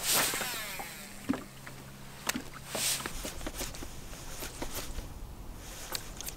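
A cast of a jerkbait on a fishing reel: a swish with the line whirring off the spool, falling in pitch over about a second, followed by scattered light clicks and taps.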